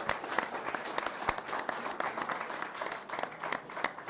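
Audience applauding, a dense patter of many hands clapping that tapers off toward the end.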